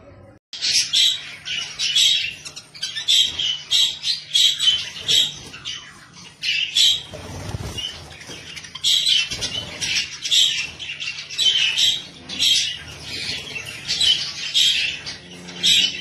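Budgerigars chattering and squawking: a dense run of sharp chirps and screeches starting about half a second in. A brief flutter of wing flapping comes about halfway through.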